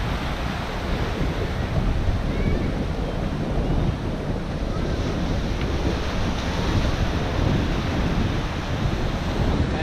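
Surf breaking and washing over shoreline rocks, with wind buffeting the microphone: a steady rushing noise with a low rumble.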